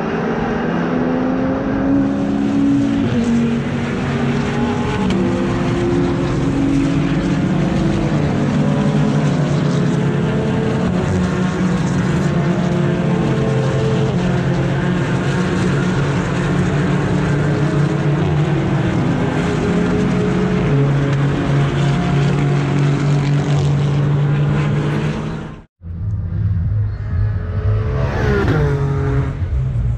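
Several race cars' engines running at once as a pack laps the circuit, their pitches rising and falling as they accelerate and brake. After a sudden cut about three-quarters of the way through, a single race car passes by.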